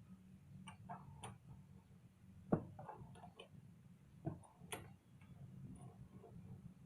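Scattered light clicks and knocks, the loudest about two and a half seconds in, over a low steady hum.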